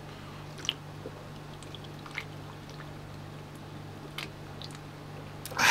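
A man gulping beer from a can: a few faint swallowing clicks, then a loud breathy exhale near the end as he finishes the swig.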